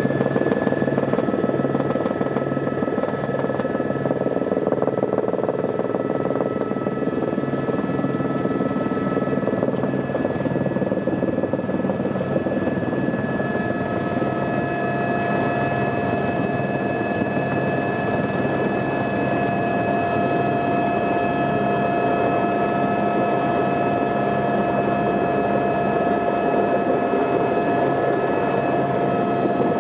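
Helicopter engine and rotor running steadily, heard from on board as it descends and lands on a helipad. There is a low, even pulsing through the first half and several steady whines, with a new whine coming in about halfway through.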